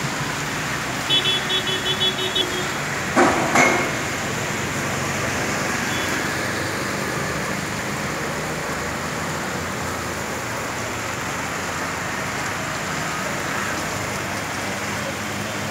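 Heavy monsoon rain pouring steadily on a wet street, a constant hiss. About a second in, a vehicle horn gives a quick run of short toots. Around three seconds in there are two loud thumps.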